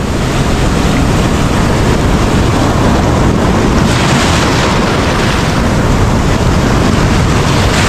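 Ocean surf washing in and wind buffeting the microphone: a loud, steady rushing noise, a little brighter about halfway through as more foam washes in.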